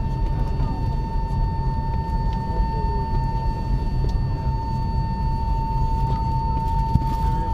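Steady aircraft cabin noise inside a parked Airbus A330-200: a constant low rumble with an unbroken high-pitched whine over it.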